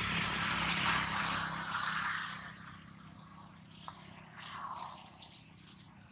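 Dry leaf litter rustling: a loud, even hiss for the first two seconds or so, then quieter, with scattered light crackles and snaps.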